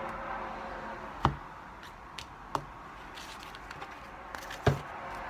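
Tarot cards and a card box being handled and set down on a table: three sharp knocks, one about a second in, a small one midway, and the loudest near the end.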